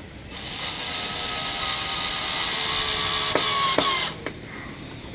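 A tool tightening the windshield mounting screws for about four seconds, with a faint steady whine and two sharp clicks near the end.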